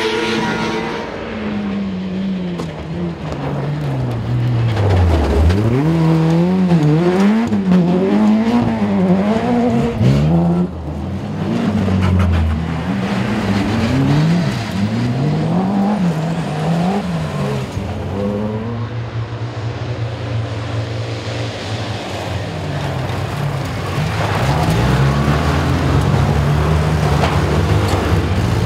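Race car engines revving hard, the pitch repeatedly climbing and falling through gear changes and throttle lifts. In the later part, a steadier low engine drone takes over.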